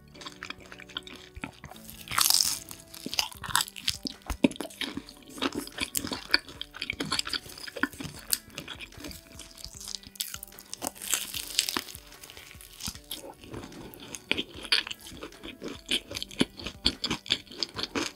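Close-miked eating sounds: crisp crunching as a fried pastry is bitten and chewed, with wet chewing of naan and curry, in irregular crackly bursts. Quiet background music plays underneath.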